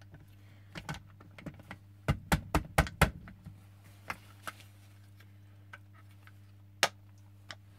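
Black plastic chassis halves of a Tamiya Konghead 6x6 kit clicking and knocking as they are pressed together by hand over the gearbox gears. A quick run of sharp clicks comes about two to three seconds in, then a few single clicks.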